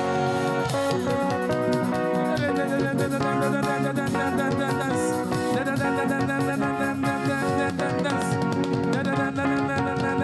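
Live African gospel praise music: a band with guitars and drums playing a steady, upbeat groove, without the choir singing.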